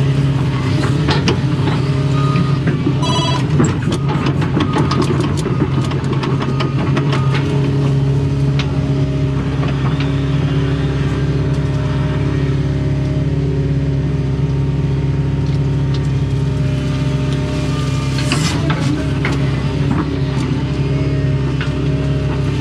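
Doosan excavator's diesel engine running steadily under hydraulic load, heard from inside the cab, with scattered clicks and knocks from the bucket digging and scraping ditch spoil. A brief beep sounds about three seconds in.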